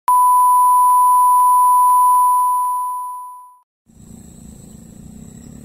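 A loud, steady, single-pitched electronic beep tone, edited into the video as a sound effect, holds for about two seconds and then fades out over the next second and a half. After a brief gap, a steady outdoor background noise starts near the end.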